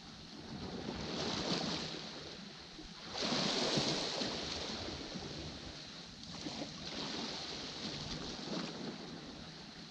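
Small sea waves washing against a rocky shore, surging in several times, the largest about three seconds in.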